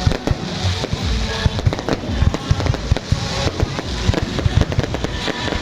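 Fireworks going off in a dense, rapid barrage of bangs and thuds, with music playing underneath.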